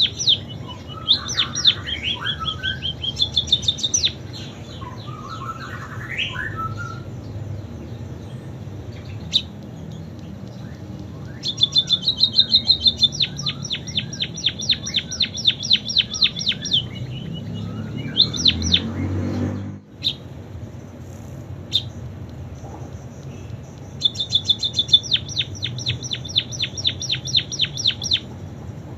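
Pipit songbird singing canary-style song: rapid trills of fast repeated high notes in phrases a few seconds long, with short pauses and scattered single calls between them.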